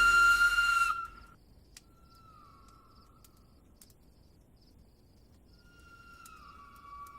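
Steam locomotive whistles. A loud, steady whistle blast cuts off about a second in. Then come fainter whistles from other engines: one sinks in pitch as it fades around two to three seconds, and another starts near the end and drops in pitch.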